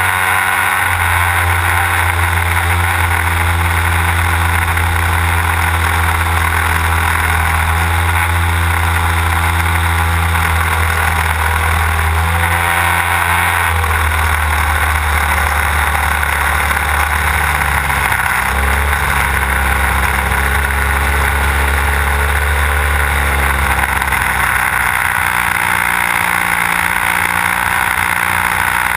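Desert Aircraft DA-150 twin-cylinder two-stroke petrol engine of a large-scale model aerobatic plane running in flight, heard close up from an onboard camera beside the cowl, with the propeller and airflow rushing over the microphone. The engine note shifts several times as the throttle changes, a little before halfway, just past halfway and again near the end.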